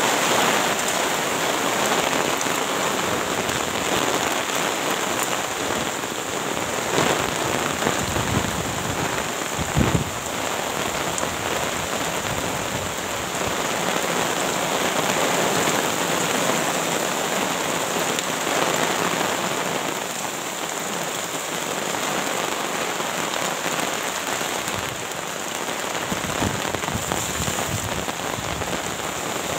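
Heavy rain falling steadily, mixed with gusting wind, with a few sharp knocks about seven and ten seconds in.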